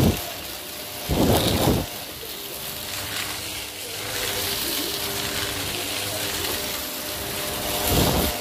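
Shark DuoClean vacuum cleaner running over carpet: a steady motor hum with suction noise, swelling louder briefly about a second in and again near the end.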